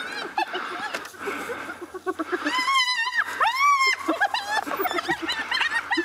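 African wild dogs at a freshly killed duiker, giving a chorus of short high-pitched twittering chirps and squeals. Two longer, louder arched squeals come about two and a half and three and a half seconds in.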